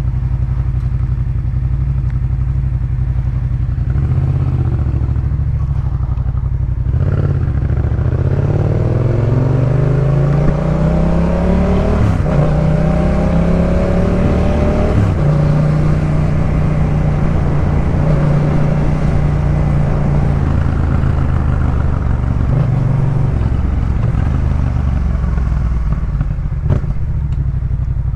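Yamaha MT-07's parallel-twin engine through a Jeskap K4 full aftermarket exhaust, running under way. The engine note holds steady, climbs as the bike accelerates about a quarter of the way in, breaks around the middle, then holds a steady pitch before dropping near the end.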